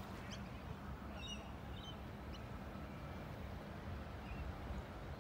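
Outdoor ambience: a steady low background rumble with a few short, high bird chirps between about one and two and a half seconds in.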